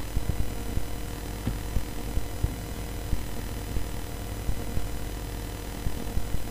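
A steady low hum under a faint hiss, with scattered soft low thumps at irregular intervals.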